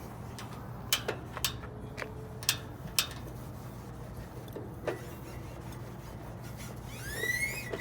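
Sharp clicks and clinks from the metal parts of a Paste Mate wallpaper pasting machine being handled, several in the first three seconds and another about five seconds in, over a steady low hum. A short rising squeak near the end.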